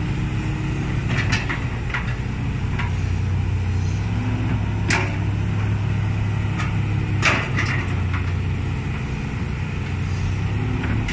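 Diesel engine of a Kobelco SK200 hydraulic excavator running steadily as it digs soil and loads a dump truck. Several sharp knocks break in, the loudest about five and seven seconds in.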